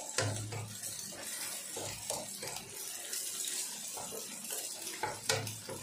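Stir-frying scrambled egg in a wok: a steady hiss with scattered clicks and scrapes of the wooden spatula against the pan.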